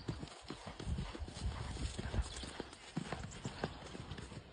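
Hoofbeats of a ridden horse: a run of irregular thuds as its hooves strike the ground, several a second.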